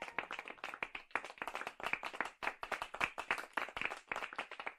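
Several people clapping: a dense patter of quick hand claps that thins out near the end.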